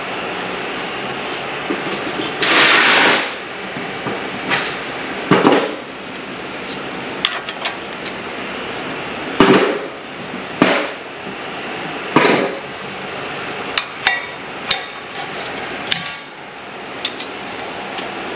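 Sharp metal clicks and knocks, about a dozen at irregular intervals, the longest a bit over two seconds in, as stamped-steel brake pad clips are worked into an Infiniti G37's front caliper bracket, over a steady background hiss.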